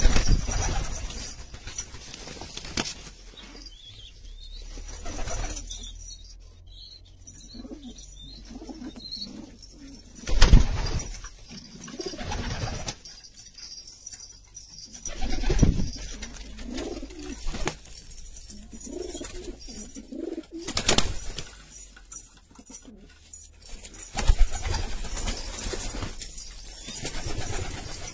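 Domestic pigeons cooing, broken by several sudden loud bursts of noise.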